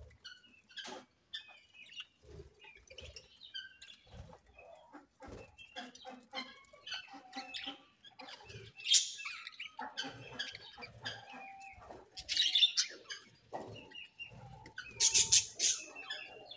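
Budgerigars chattering with many quick chirps and warbles, broken by louder, harsher squawks about nine, twelve and fifteen seconds in.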